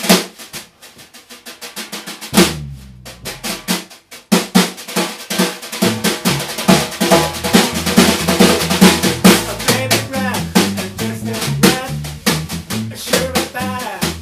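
Live band music led by a drum kit: a snare hit, then a few seconds of light, fast snare strokes with a couple of electric bass notes, before the full groove of drums and electric bass comes back in about six seconds in and keeps a steady beat.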